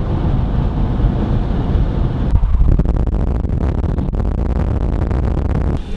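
Car driving at highway speed: steady low engine and road rumble, turning about two seconds in to a choppier rush of wind buffeting at an open side window.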